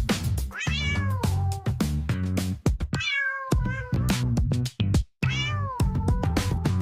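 Dance music with a steady drum beat and bass line, with three drawn-out cat meows over it about every two and a half seconds. The music drops out briefly about five seconds in.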